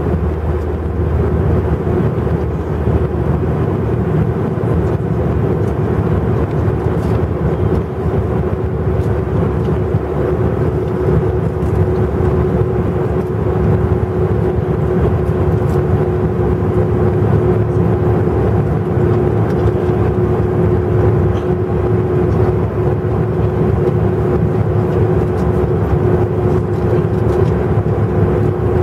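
Steady cabin noise of an Airbus A320 in the climb, heard from a seat beside its IAE V2500 turbofan: a deep, even rush of engine and airflow with a steady low hum running through it.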